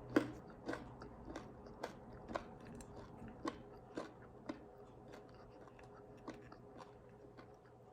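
Chewing and crunching food close to the microphone, a string of crisp bites and chews about every half second that thin out and fade after about four and a half seconds.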